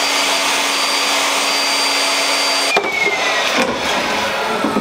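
Benchtop table saw running with a steady motor whine; about two and a half seconds in it is switched off and the blade coasts down with a slowly falling whine, with light knocks of wood being handled.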